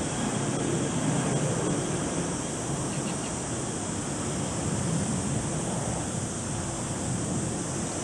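Steady rushing roar of a Boeing 737-800's CFM56-7B jet engines.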